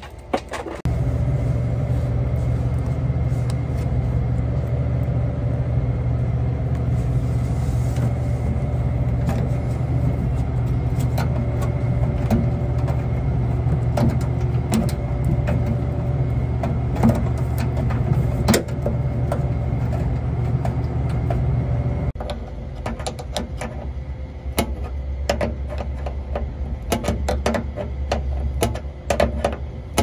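A steady low mechanical hum with light clicks and taps from handling plastic water tubing and fittings. About 22 seconds in the hum cuts off, leaving quicker clicks and rattles of tools on a brass compression fitting.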